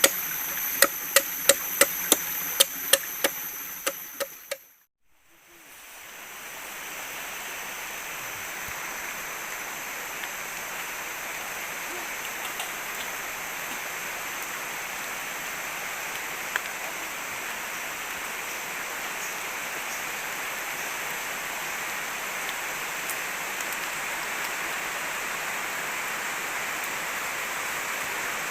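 Quick chopping strokes, about three a second, that fade out after a few seconds. A steady rushing noise of water then follows and holds evenly.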